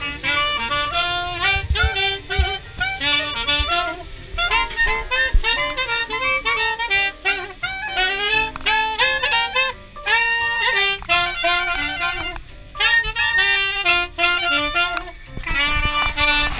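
Clarinet and saxophone playing a jazzy tune together, in busy runs of short notes, with a low rumble underneath.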